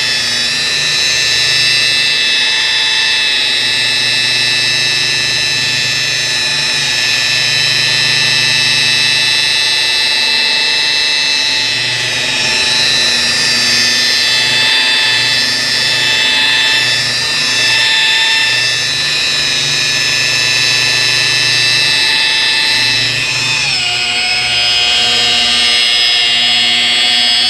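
DeWalt rotary polisher running with a wool pad on car paint: a steady high-pitched motor whine. Its pitch drops a little near the end and stays lower.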